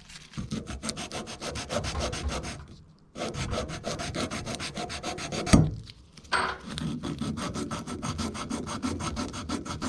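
A pipe end is being rubbed clean by hand in rapid back-and-forth strokes, in three spells with short breaks about three and six seconds in. There is a sharp knock about five and a half seconds in.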